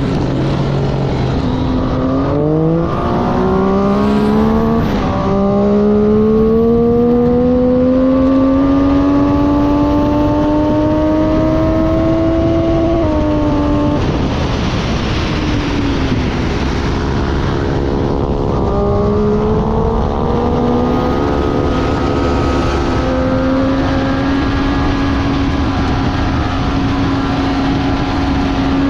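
Motorcycle engine at race pace: it revs up through two quick upshifts, pulls in one long rising sweep, then shuts off and falls away about halfway through. It picks up again and settles at a steady high pitch, with constant rushing wind noise underneath.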